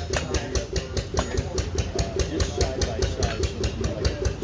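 An engine running steadily with even, rapid beats, about four to five a second. A hammer rings once on an anvil about a second in.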